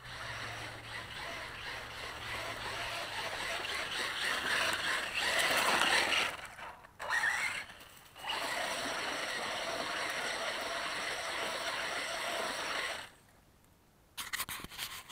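Axial Yeti electric RC truck driving over dirt and dry leaves: a steady hiss of tyres and drivetrain, with a short rising motor whine around seven seconds in. It breaks off briefly twice and stops about two seconds before the end, followed by a few small clicks.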